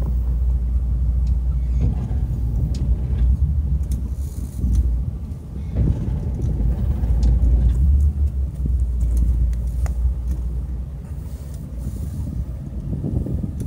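Motorboat engine running at low speed, a steady low rumble, with a few light knocks on board.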